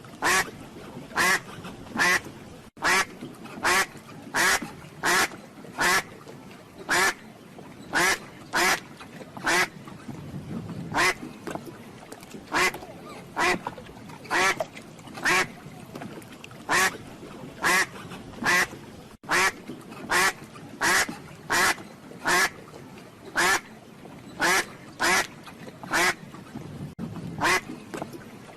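Duck quacking over and over: short, loud quacks repeated about one to two a second, with a few brief pauses.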